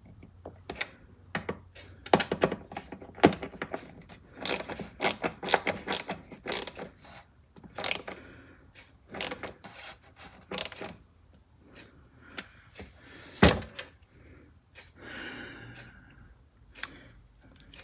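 Irregular clicks, knocks and rattles of a ratchet T-handle screwdriver and its metal bits being worked and handled, with a brief scraping sound near the end.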